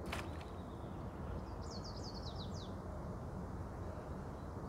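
A small songbird sings one short phrase of about eight quick, high, downward-sliding notes, over a steady low background rumble. A sharp click comes right at the start.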